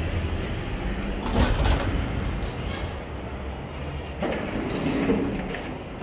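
Automatic glass entrance doors of a store sliding open, with rushing and a low rumble of wind and street noise. The noise swells twice, loudest about a second and a half in and again about four seconds in.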